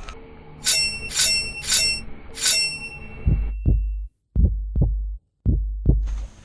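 Four bright bell-like chimes, then a run of deep bass thumps about twice a second that cuts out to dead silence twice. It sounds like an edited-in sound effect or music sting rather than field sound.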